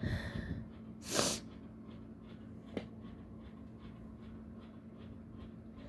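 A person sneezing once, sharp and brief, about a second in, just after a short breathy intake of breath. A faint click follows near three seconds.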